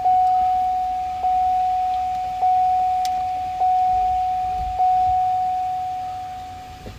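A car's electronic warning chime: one steady tone struck about once every 1.2 seconds, each strike fading before the next, five strikes in all, stopping near the end.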